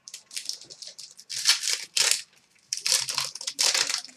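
A hockey trading-card pack's wrapper crinkling and tearing as it is ripped open, in several short rustling bursts.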